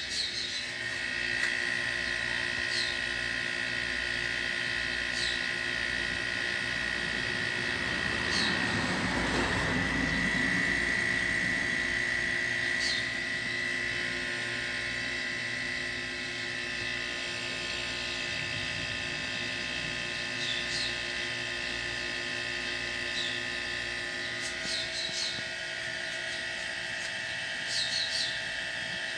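Two refrigerator compressor motors running steadily as a homemade air compressor, pumping air into a 100-litre tank: a continuous hum with several steady tones over a pulsing low throb. A wider rush of noise swells and fades about nine to twelve seconds in.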